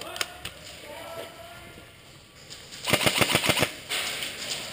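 Airsoft electric gun firing a rapid full-auto burst of about a dozen shots, lasting under a second, about three seconds in; another burst begins right at the end.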